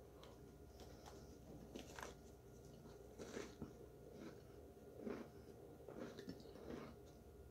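Faint biting and chewing of a chunk of packed cornstarch: soft, irregular crunches every second or so, the strongest about three and five seconds in.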